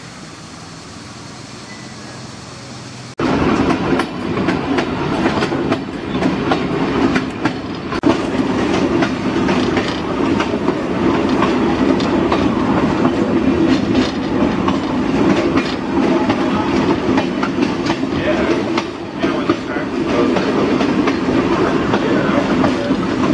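A moving caboose heard from its open end platform: steady loud running noise of the wheels clattering on the rails, with rattling of the car. It cuts in suddenly about three seconds in, after a quieter stretch of outdoor background noise.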